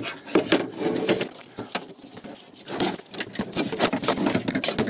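Irregular clicks, knocks and rattles of a metal window regulator and its cables being handled and pushed into place inside a Land Rover Freelander's bare steel door shell.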